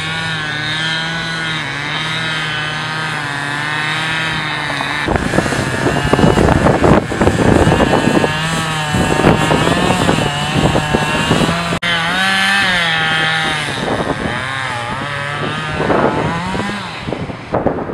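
Chainsaw running at high speed, its pitch wavering up and down. From about five seconds in, wind buffets the microphone in rough gusts.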